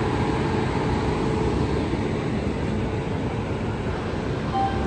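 Steady low rumble of a train at a station platform: an electric locomotive and a luggage, brake and generator car, whose generators run to power the train.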